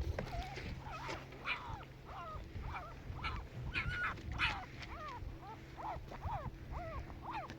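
Husky puppies whimpering and yipping: many short, high squeals that bend up and down, several a second, over a steady low hum.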